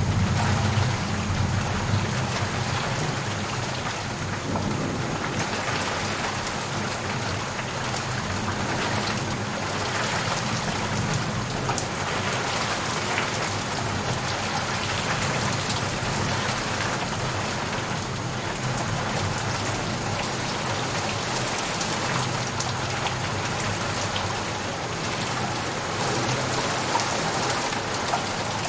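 Steady rain falling, a dense even hiss with scattered drop ticks, over a low rumble that swells at the start and again near the end.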